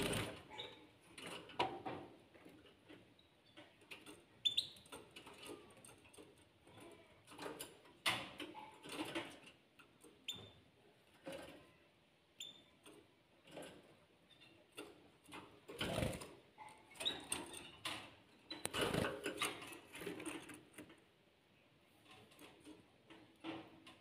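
Canaries pecking at a broccoli floret and shuffling on a wire cage floor: irregular clicks, taps and scuffs, with a few brief high peeps. Two louder bursts of knocking and rustling come about two thirds of the way through.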